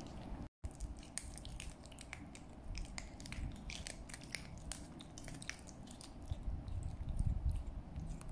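Kitten licking a lickable paste treat from a squeeze tube: an irregular run of small, quick wet smacking clicks of tongue and mouth.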